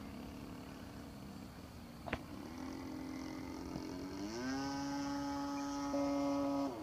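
Parkzone Archer II radio-controlled model plane's electric motor and propeller droning in flight. The drone climbs in pitch a little after four seconds in as the throttle is opened, holds steady, then cuts off just before the end as power is pulled for a glide. A single sharp click about two seconds in.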